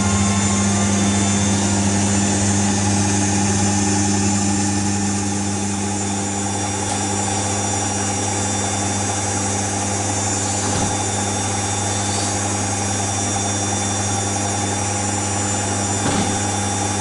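Front-loading washing machine running with a steady low motor hum. Two faint knocks come through about 11 and 16 seconds in.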